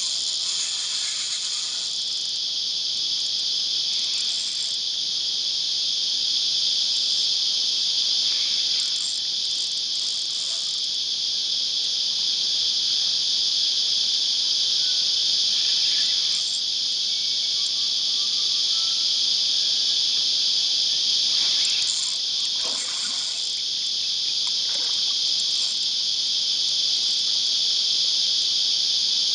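Cicadas buzzing in a loud, steady, high-pitched chorus that never lets up.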